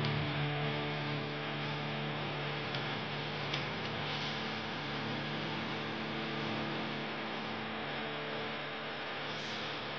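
Background music: a sustained low droning chord that slowly fades, over a steady hiss.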